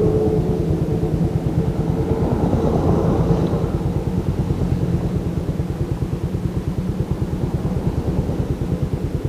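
Motorcycle engine easing off and settling toward idle. Its loudness falls away and its firing turns into an even, regular pulse in the second half.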